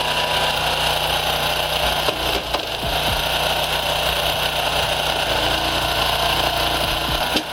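An engine running steadily at an even pitch, with a constant low hum under a dense hiss. It stops abruptly near the end.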